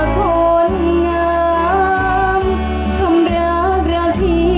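A girl singing a Thai song into a microphone over a backing track with bass and a steady beat, holding long notes with small bends in pitch.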